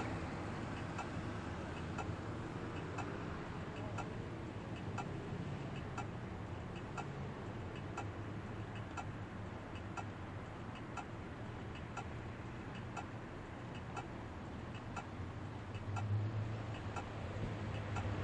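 Pedestrian crossing signal's audible locator ticking steadily at even intervals, over a low traffic rumble that grows louder about sixteen seconds in as a vehicle passes.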